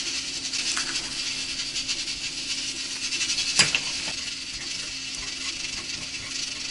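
Stovetop cooking in a kitchen: a steady crackling hiss over a low hum, with one sharp clink of dishware about three and a half seconds in.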